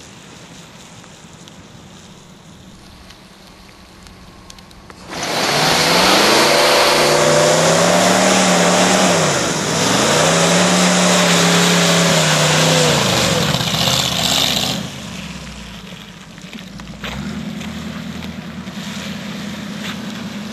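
1973 Buick Apollo doing a burnout on wet pavement. About five seconds in, the engine is revved hard twice in a row with a tyre spinning, for about ten seconds, then it falls back to a lower engine note as the car drives off. Only one rear tyre spins, because the car has no posi-traction rear end.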